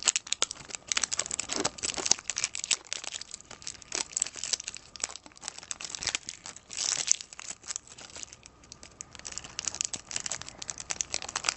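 Clear plastic packaging crinkling as hands pull it open off a toy's ice-cream-cone container, with dense, irregular crackles throughout.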